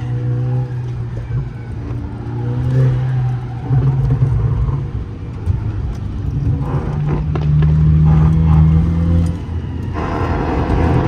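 Volkswagen Mk6 GTI's 2.0-litre turbocharged four-cylinder engine driven hard on a track, its pitch stepping up and down as it accelerates, shifts and slows, and getting louder near the end.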